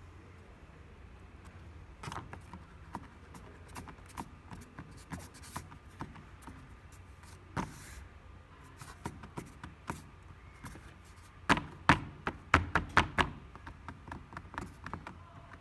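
Ceramic clay being rolled by hand into a coil on a board: faint rubbing and scattered light taps, then a quick run of about eight sharper knocks on the board about three quarters of the way through.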